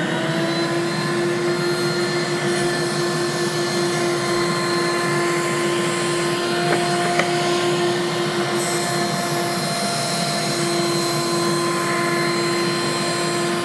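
Router in a router table running at a steady high whine while a board's edge is fed along the fence past the bit, making an edge-jointing pass.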